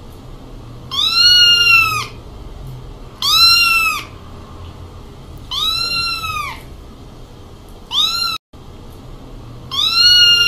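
A young kitten trapped in a narrow pipe meowing in distress: five high meows, each rising then falling in pitch, about two seconds apart. The fourth is short and cut off abruptly.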